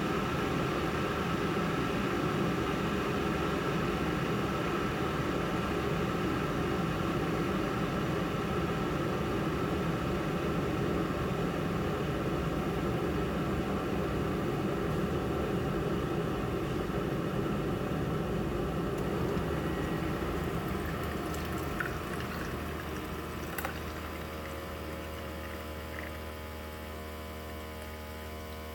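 Single-cup coffee maker brewing, its pump running as hot water and coffee stream into the cup. In the last several seconds the flow dies away, leaving a steady electrical hum with a couple of small clicks.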